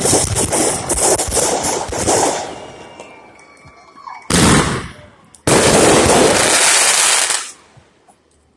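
Fireworks going off: a rapid string of crackling bangs for about two seconds that dies away, then a short loud hissing burst past the middle and about two seconds of loud, steady hissing rush that cuts off near the end.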